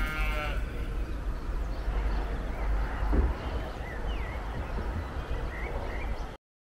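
Outdoor ambience dominated by wind buffeting the microphone, a steady low rumble that cuts off abruptly near the end. A short animal bleat sounds right at the start, and a few faint bird chirps come about four to five seconds in.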